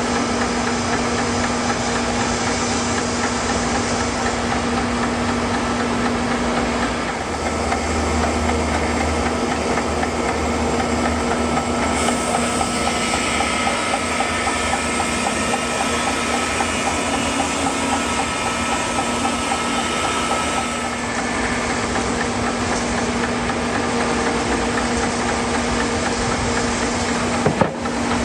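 Sawmill engine running steadily as the mill works a walnut log, the sound shifting slightly a few times, with one brief sharp knock near the end.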